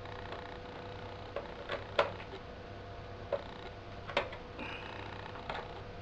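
Phillips screwdriver clicking against a stubborn screw in a laptop's plastic base, a handful of separate sharp clicks, the loudest about two seconds in, over a steady low hum.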